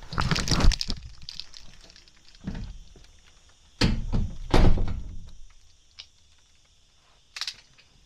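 A house door being opened and pulled shut: a few rustles and knocks, with two heavy thunks a little under a second apart near the middle.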